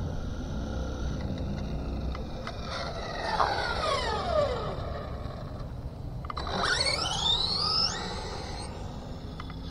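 Team Associated DR10 RC drag car's electric motor and gears whining at speed: about three seconds in the whine drops in pitch as the car goes past, and about six and a half seconds in a rising whine climbs quickly as it accelerates, then cuts off suddenly near the eight-second mark. A low rumble runs underneath.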